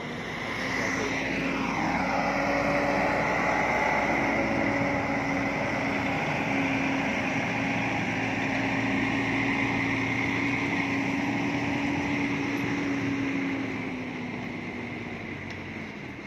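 Volvo heavy truck's diesel engine running as it hauls a lowbed trailer, with a steady high whine over the engine note. It swells about half a second in, holds, then eases off near the end.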